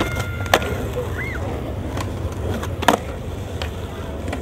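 Skateboard wheels rolling on asphalt with a steady low rumble, broken by two sharp clacks of the board, about half a second in and again near three seconds in.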